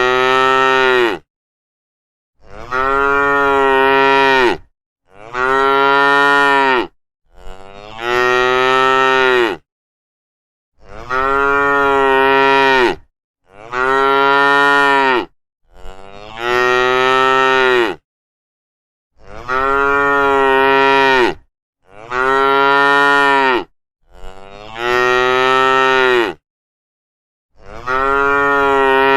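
Cows mooing: one long moo after another, about eleven in all, each about two seconds long, rising slightly in pitch and then falling away, with dead silence between them.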